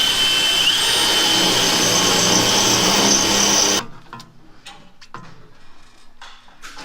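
Power drill running steadily, its motor pitch stepping up briefly just under a second in, then cutting off about four seconds in; lighter knocks and clicks follow.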